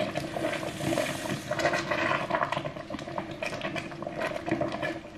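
Pot boiling on the stove, bubbling and sputtering in quick irregular crackles over a steady hiss.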